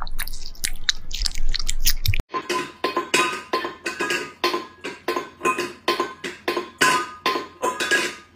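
Wet chewing and licking as a cat eats a piece of raw meat; then, about two seconds in, a cat at a stainless steel bowl on the floor, the bowl clinking and ringing in a steady rhythm about three times a second.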